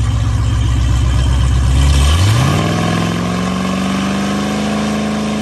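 Dodge Challenger SRT Demon's supercharged 6.2-litre Hemi V8 idling, then about two seconds in the revs climb quickly and hold at a steady higher pitch.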